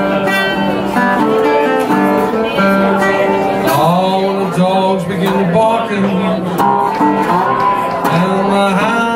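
Metal-bodied resonator guitar played as acoustic blues.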